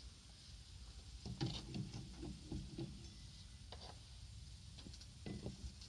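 Faint, scattered clicks and scrapes of a steel rebar being levered into a bend by hand with a long-handled bending tool, the bar shifting on gravelly dirt.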